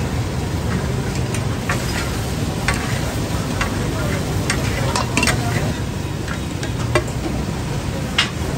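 Goat brain and offal stew sizzling in butter on a large flat katakat griddle, with scattered sharp clicks of metal spatulas and a ladle.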